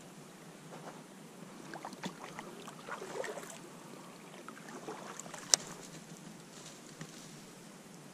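Quiet handling sounds in a fishing kayak: small knocks and rustles as the rod, reel and paddle are moved about against the hull, with faint water around the boat. One sharp click about five and a half seconds in is the loudest sound.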